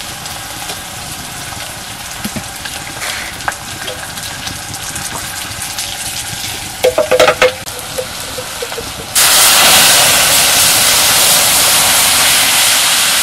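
Onions frying quietly in oil in an iron kadai over a wood fire, with a few sharp metal clinks of a ladle about seven seconds in. About nine seconds in, a yellow liquid is poured into the hot oil and a loud, steady sizzle starts suddenly.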